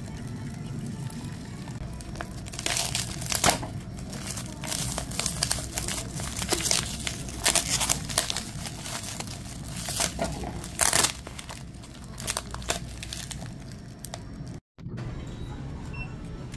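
Clear plastic film wrapper of a convenience-store triangle kimbap being torn and pulled open by hand: a long run of irregular crinkles and tearing rustles that starts about three seconds in and stops a few seconds before the end.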